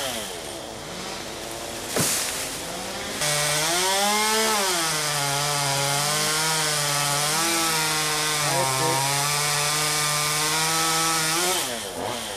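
Stihl MS200T two-stroke top-handle chainsaw running, at first more quietly with a sharp tick about two seconds in. About three seconds in it revs up and cuts into hickory for roughly eight seconds, its pitch sagging and recovering under load, then drops back near the end.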